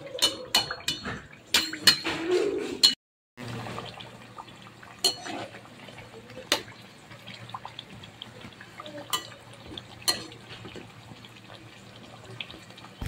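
Kachoris deep-frying in hot oil in a kadhai, a faint steady sizzle with occasional clinks and scrapes of a metal slotted spoon. In the first three seconds, sharp clinks of utensils and a plate come before the audio briefly drops out.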